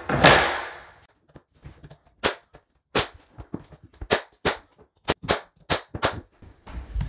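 A thump just after the start as the baseboard is set in place. Then, from about two seconds in, a pneumatic finish nailer fires about nine sharp shots, driving 2-inch finish nails through the baseboard into the studs.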